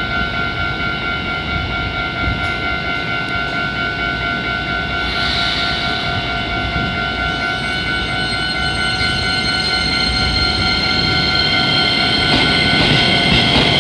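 Keisei 3000-series electric train standing at the platform with a steady high whine, a short hiss about five seconds in, then starting to pull away. The sound grows louder, and its motor whine begins to rise in pitch near the end.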